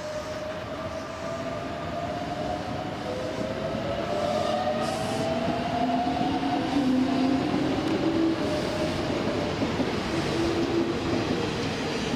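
Keikyu electric train pulling out of the platform. Its motors whine in a few tones that rise slowly in pitch as it picks up speed, and the sound grows louder as the cars pass.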